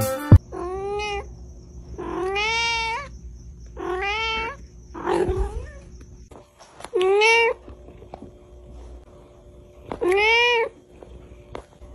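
A domestic cat meowing over and over: about six drawn-out meows a couple of seconds apart, each rising and then falling in pitch. A sharp click just at the start.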